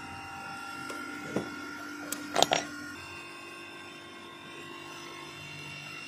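Hydraulic compression press for ACSR conductor joints running with a steady mechanical hum whose note shifts about three seconds in. A knock comes about a second and a half in, and a few sharp metallic clanks, the loudest sounds, follow about a second later.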